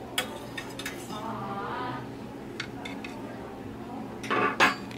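Light metallic clicks and scrapes from a countertop oven's wire rack as a baked cookie is taken off it, with one louder metal clatter near the end.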